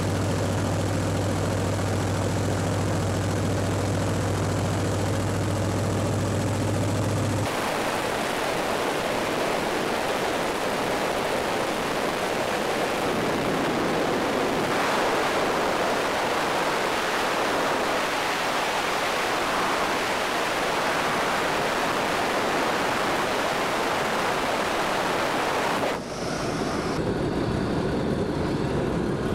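Vintage biplane's engine and propeller drone steadily in flight, then a long stretch of dense, even rushing air noise in the open cockpit. About three seconds before the end there is an abrupt change to a quieter engine running with the plane on the ground.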